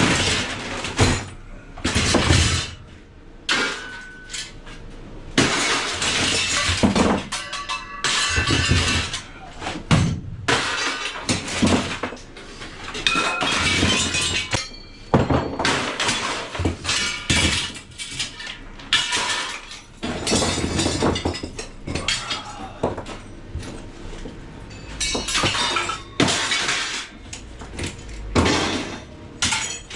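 Scrap being smashed up: repeated irregular crashes and clanks, with breaking glass, while music plays.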